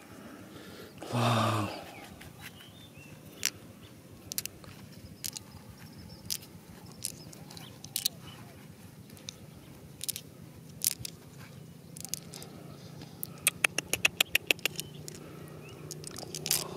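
Small polished stones clicking and clinking as they are picked out of loose, dry gravelly dirt and gathered in a hand: scattered single clicks, then a quick run of about ten clicks near the end. A short hum of a voice about a second in.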